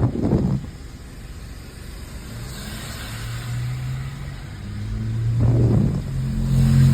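Car driving, its engine running with a steady low hum that builds toward the end, over road noise. Two short low thuds, near the start and about five and a half seconds in.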